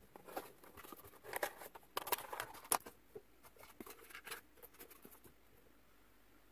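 Small cardboard box being opened by hand and its contents taken out: a run of rustles, scrapes and light taps of cardboard and paper, loudest about two seconds in, dying away near the end.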